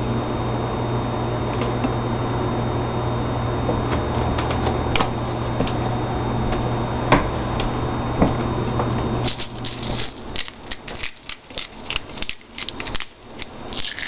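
A steady electric hum, which cuts off about ten seconds in. It is followed by a quick, irregular run of clicks and scrapes from kitchen handling.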